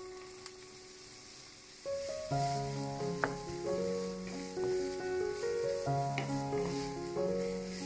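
Food sizzling in hot oil in a frying pan, with a few light clicks from stirring, over background music.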